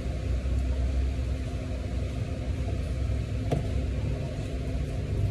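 Steady low rumble of background noise, with a single sharp click about three and a half seconds in.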